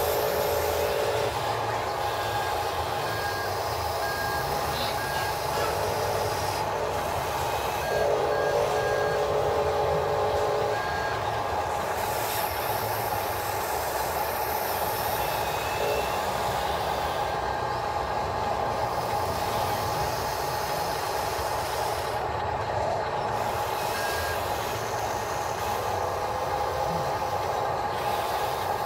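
Electric motors of a radio-controlled model excavator whining steadily as its arm digs, with a second, lower whine that comes and goes as different functions are worked.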